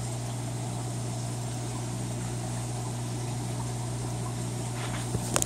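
Aquarium pump running with a steady low electric hum over a soft, even hiss of moving water, with a few light clicks near the end.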